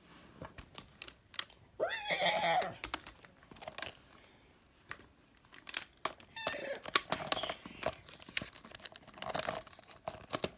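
A person's voice making imitated dinosaur roars three times, mixed with sharp clicks and clacks of plastic toy figures being handled.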